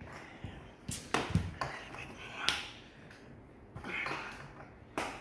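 A few sharp knocks and clicks of parts and tools being handled while a kids' ride-on toy car is assembled, with a faint voice in the background.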